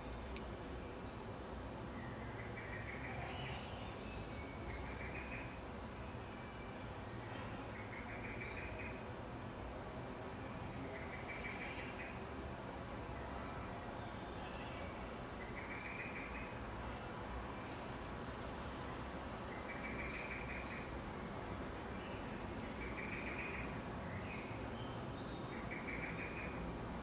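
Steady outdoor background noise with a short chirping call that repeats about every two to three seconds and a faint, fast, high ticking.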